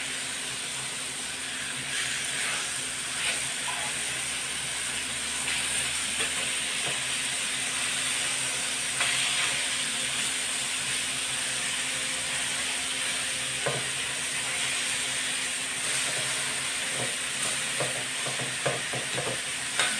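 Slices of pork belly sizzling steadily as they sear in a hot wok, with a few light clicks of tongs turning them, most of them in the second half.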